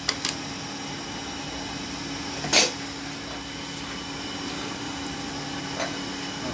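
Transmission parts being handled during a teardown: a couple of light clicks, then a single louder knock about two and a half seconds in, over a steady low hum.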